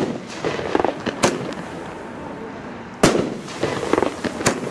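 Consumer fireworks battery (cake) firing aerial shots: three sharp bangs, the loudest about three seconds in, each followed by a scatter of crackling as the stars burst.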